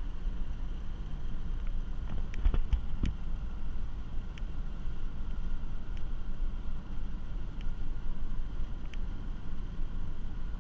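Inside a moving car: steady low rumble of tyres and engine. A cluster of sharp clicks comes about two to three seconds in, with a few single ticks later.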